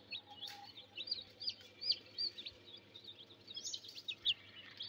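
Newly hatched chicks peeping: a busy string of short, high cheeps, several a second.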